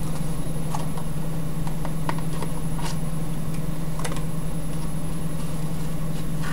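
A steady low hum from a motor or appliance, with a handful of faint clicks and taps from handling the lighter's box and packaging.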